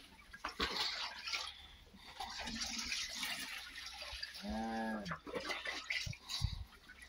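Calves licking and sucking at a man's hand, making irregular wet slurping and smacking sounds. About four and a half seconds in, one calf gives a short bawl that rises and then falls.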